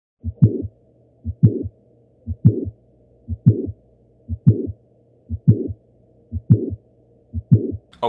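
Heart sounds recorded through a digital stethoscope, beating about once a second: eight beats, each a low double thump with a fainter thump just before it.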